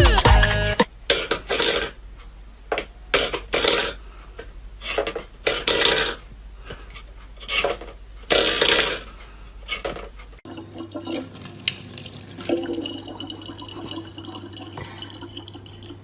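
Water splashing and dripping in irregular bursts, followed by a steadier stretch with a low hum underneath.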